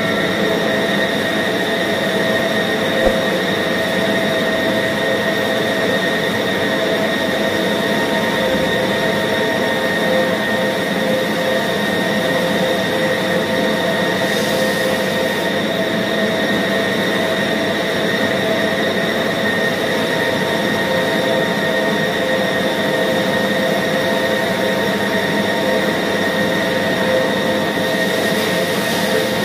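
Electric meat band saw running with a steady whine as it cuts through frozen pork.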